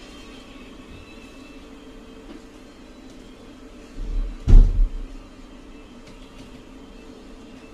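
A steady low electrical or fan hum, with one dull thump about four and a half seconds in.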